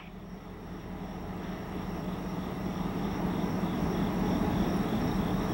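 Diesel locomotives (EMD Geeps) running as they approach, a steady engine drone that grows gradually louder.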